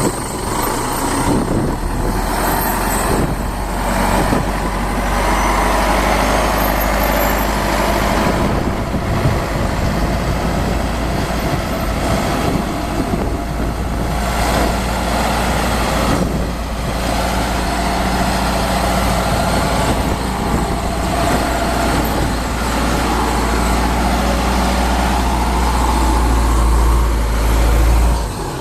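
A heavy engine running steadily, with a deep drone that swells near the end and drops away sharply just before the end.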